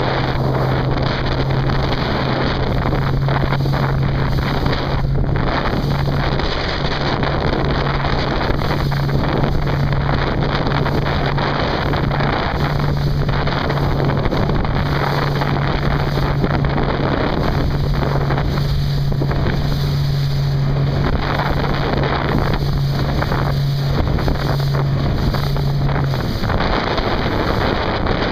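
Strong wind buffeting the microphone in a continuous loud rush, with a steady low hum underneath that stops near the end.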